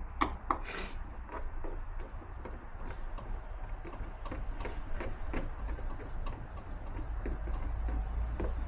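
Phillips screwdriver backing out a door-card screw, with a steady run of small clicks, a few each second.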